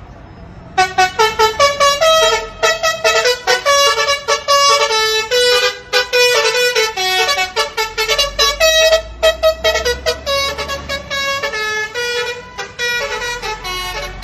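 Bus 'telolet' multi-tone air horn (Basuri type) playing a fast melody of short honked notes. It starts about a second in and plays on without a break.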